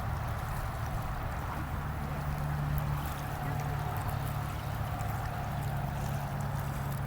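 A steady low motor hum over the rush of river water.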